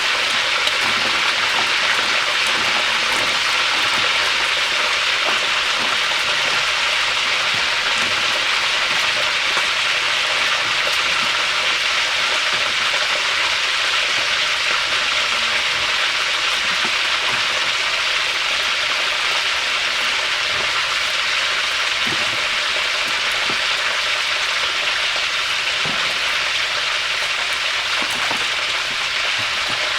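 Fish frying in hot oil: a steady sizzle with scattered small crackles.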